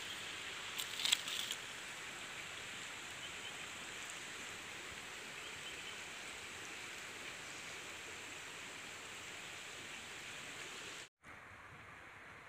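Steady outdoor forest ambience with a soft, even hiss, and a few brief rustles and clicks about a second in. The sound cuts out for an instant near the end.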